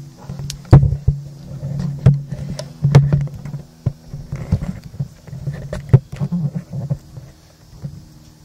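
Handling noise from a camera being moved and set in place: irregular knocks and rubbing, with the loudest knocks about a second in, at three seconds and near six seconds, over a steady low hum.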